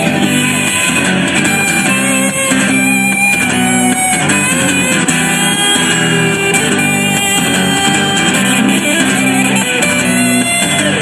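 Guitar-driven rock music in an instrumental break between sung verses, with no singing.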